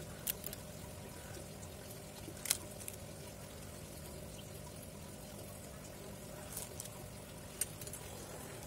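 A steady faint background hum and hiss, broken by four light sharp clicks as the smartphone's frame and screen are handled and pressed together by hand.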